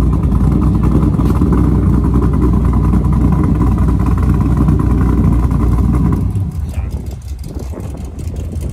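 Chevrolet Corvette LS V8 running at idle through its exhaust, a loud low rumble. It falls off noticeably about six seconds in.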